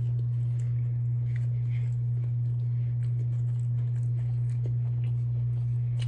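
A steady low hum, the loudest sound, with faint soft chewing and a few small rustles of a sandwich in its paper wrapper.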